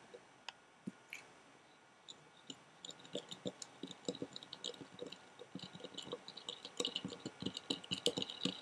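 Stirring a small beaker of warm juice with sugar and gelatin: quick, irregular clicks and ticks of the stirring utensil against the beaker, sparse at first and growing busier after a couple of seconds. The stirring is to dissolve the sugar crystals and gelatin.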